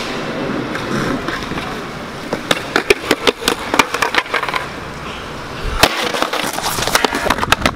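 Skateboard wheels rolling on rough ground. A string of sharp clacks from the board comes from about two to four and a half seconds in, and one louder clack comes near six seconds.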